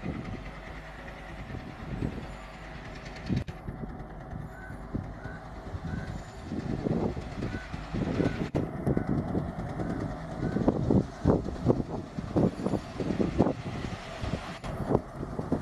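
ALCO-type WDM-series diesel locomotive running as it slowly hauls a passenger train toward the listener, its engine exhaust chugging in uneven low beats that get louder about halfway through as it draws near.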